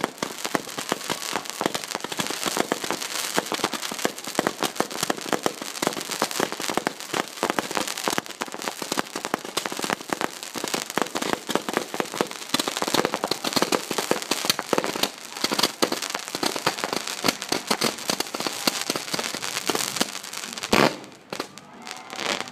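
Fireworks going off at close range: a dense, continuous crackle of many small rapid pops, with one louder bang near the end.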